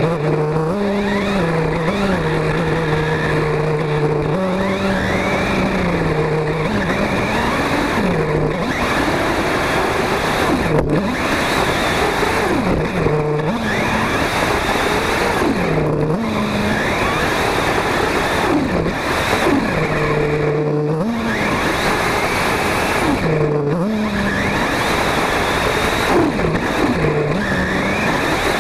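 Engine of a Kyosho Inferno MP5 1/8-scale nitro RC buggy, picked up by a camera mounted on the buggy. It runs at a steady pitch for stretches and repeatedly drops and rises again as the throttle is let off and opened.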